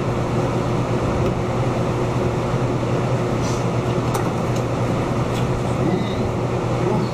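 A steady low machinery hum, like a room's ventilation, with a few faint clicks about four and five seconds in.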